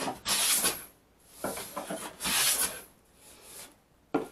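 Japanese hand plane (kanna) pulled across the end grain of a wooden board: four rasping shaving strokes of about half a second each, the last one fainter. A short knock comes near the end.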